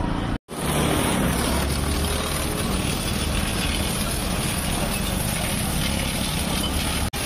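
Pressure washer pump running with a steady hum while its water jet hisses against a motorcycle. The sound drops out briefly just under half a second in and again near the end.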